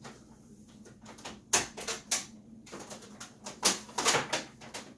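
Cables and hardware being handled at a desk: a handful of sharp clicks and knocks with rustling between them, the loudest about one and a half and three and a half seconds in.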